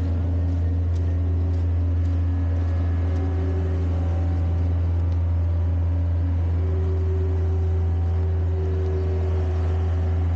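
Heavy equipment engines running steadily: a dump truck and a skid-steer loader. A constant low drone, with engine tones above it that shift in pitch now and then.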